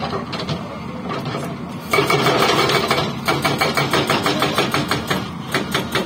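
Hydraulic rock breaker on a Hyundai excavator hammering boulders, over the excavator's engine. About two seconds in the breaker settles into a loud, rapid, even run of blows that keeps going.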